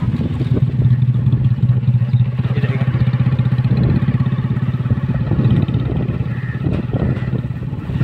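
Motorcycle engine running steadily as it rides, a low even hum with a couple of short knocks late on.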